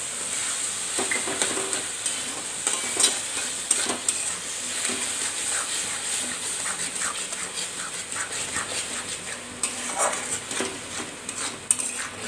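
A metal spatula scrapes and knocks against a metal kadhai in irregular strokes as cooked ash gourd and melting jaggery are stirred. Under the strokes the mixture sizzles steadily in ghee.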